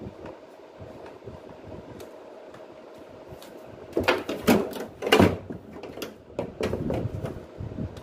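Plastic knocks and clatter from hands handling the open front panel and filter of a split air-conditioner indoor unit. They start about halfway in, are irregular and loud, and sit over a steady background hum.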